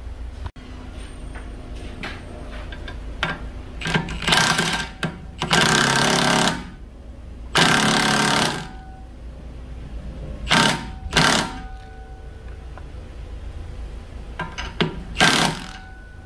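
Impact wrench hammering in about six separate bursts of up to a second each, spinning an oversized nut down a new wheel lug stud to pull the stud into the hub.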